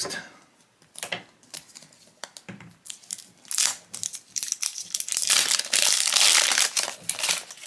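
Crinkly plastic shrink wrap being torn and peeled off a plastic blind capsule ball, starting with scattered light clicks and crackles and turning into dense, louder crinkling about halfway through.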